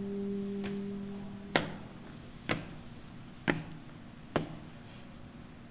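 Solo alto saxophone holding a low note that stops about one and a half seconds in. Four sharp pops follow, about a second apart.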